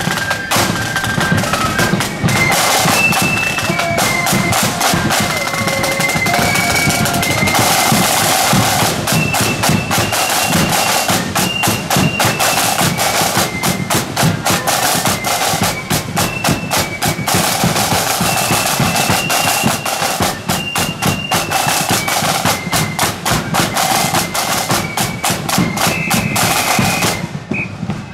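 Marching flute band playing a tune on the move: a rank of rope-tension snare drums rattling out rolls and rudiments with bass drum beats, under a high flute melody.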